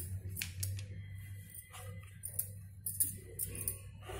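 Bangles on the wrists clinking in light, irregular ticks as the hands roll dough back and forth on a wooden board, over a low steady hum.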